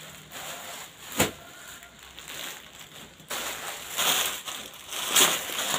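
Cloth rustling, a single sharp click about a second in, then a clear plastic garment bag crinkling and crackling irregularly as it is handled, from just past the middle onward.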